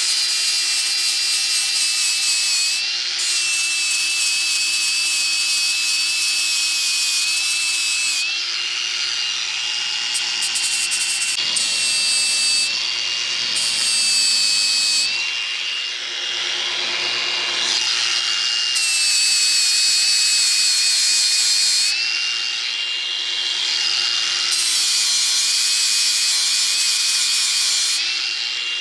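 Electric angle grinder running continuously against the steel edge of a tree-shear blade, grinding it back into shape. It gives a steady high whine over a grinding hiss, and its pitch sags briefly several times as the disc is pressed harder into the metal.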